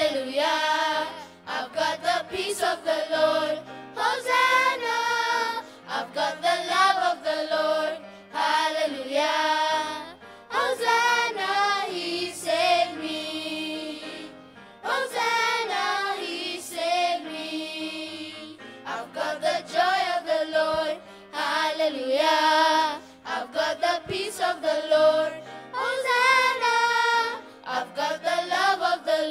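Children's choir singing an upbeat gospel song into microphones, in sung phrases of a second or two with steady low notes underneath.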